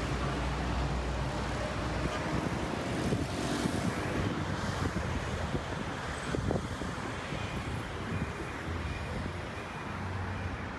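Road traffic: cars passing on a city street, a continuous hum of engines and tyres that swells and eases as vehicles go by.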